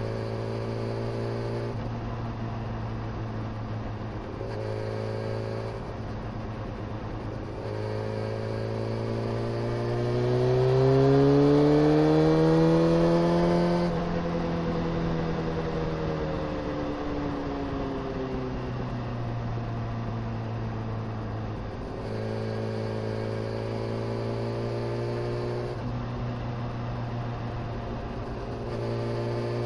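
A road vehicle's engine running at a steady speed. About ten seconds in its pitch rises as it accelerates. Around fourteen seconds it drops back and settles to a steady hum again.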